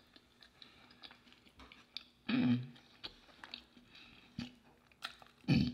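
Close-miked mouth sounds of a person chewing a soft burrito: small wet clicks of chewing, with a short hum falling in pitch about two seconds in and another short voiced sound near the end.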